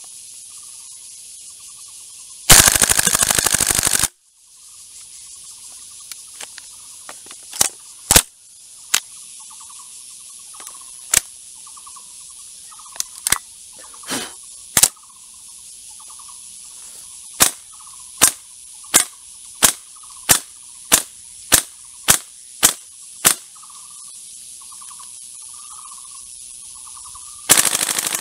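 VFC HK416D Gen2 gas-blowback airsoft rifle firing: a short full-auto burst of about a second and a half near the start, then single shots, scattered at first and then in a steady run of nearly two a second, and a second short burst at the very end. Insects chirp and hiss steadily underneath.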